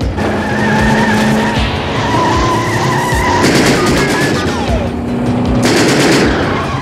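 Film car-chase sound effects: car engines racing and tyres squealing, with a burst of gunfire about halfway through, under action music.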